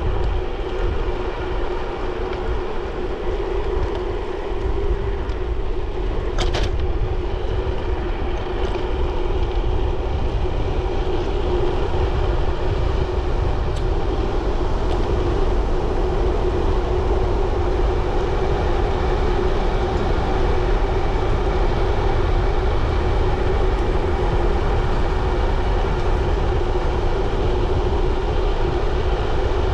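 Bicycle riding along a road: a steady rolling rumble of tyres and wind, with one sharp click about six seconds in.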